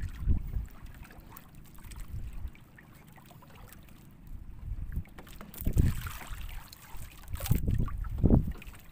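Wind buffeting the microphone in gusts on a small boat at sea, with the wash of the water around the hull. The gusts come at the start, again around the middle and twice near the end, with a quieter stretch between.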